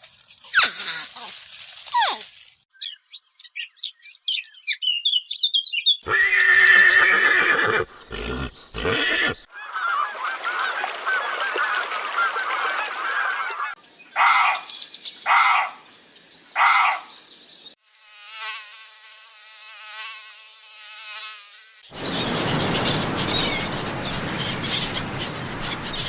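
A quick succession of different animal calls cut one after another: high rapid chirping, several separate pitched calls including a group of three short calls, and stretches of noisy hiss at the start and near the end.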